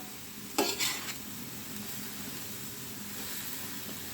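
Shredded ash gourd bhaji sizzling gently in a large pot over low heat. About half a second in there is one brief clatter of a utensil against the pot.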